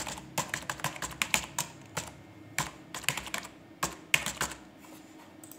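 Typing on a computer keyboard: irregular keystrokes in quick runs, which stop a little over four seconds in.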